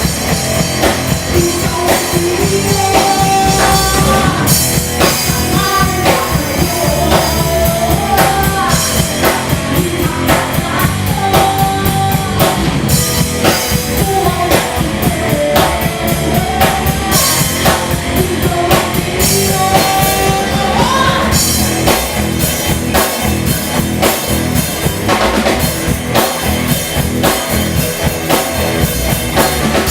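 Rock band playing live: drum kit, bass and guitars, with a melodic lead line that bends and holds long notes over the beat.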